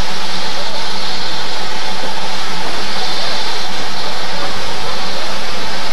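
Steam locomotive giving off a loud, steady hiss of steam.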